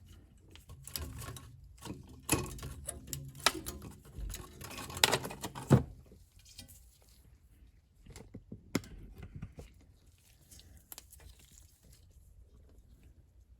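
Scattered metal clicks and knocks as a car's rear brake caliper is unhooked from its hanging wire and handled back into place over the new pads. The clicks come thick and loud for the first half and then thin out to occasional faint taps.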